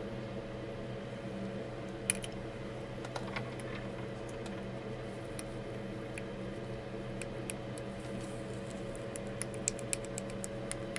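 Light metal clicks and taps of hand work on a partly dismantled Lada Priora engine, with one sharper knock about two seconds in and a quicker run of ticks in the last two seconds, over a steady low hum.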